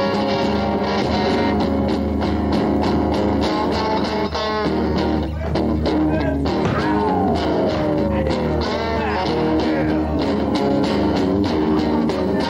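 Blues-rock band jamming live: two electric guitars playing over steady drums, with gliding, bending notes through the middle.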